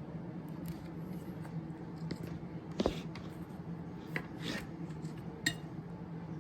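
Steady low electrical hum with a few small clicks and taps of handling tools or parts on a workbench, the sharpest about three seconds in.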